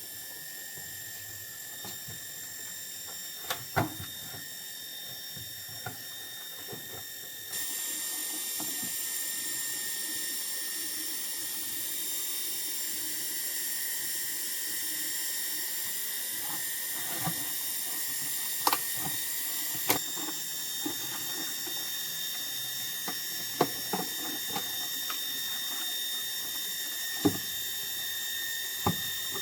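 Electric booster water pump running continuously with a steady high-pitched whine, getting louder about seven seconds in, with scattered sharp clicks and knocks. The pump will not cut out by itself.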